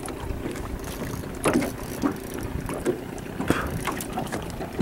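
Choppy lake water lapping around a small fishing boat, with wind on the microphone. Several short sharp sounds break through it, the loudest about one and a half and three and a half seconds in.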